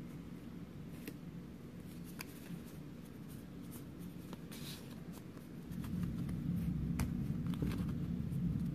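Pokémon trading cards handled and slid across one another, giving faint scattered clicks and a short swish as the cards are sorted through. A low steady hum rises about six seconds in.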